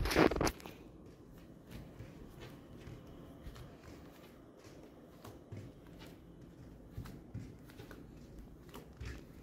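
A short rustle right at the start, then the quiet hush of an indoor room with faint, soft footsteps and small clicks.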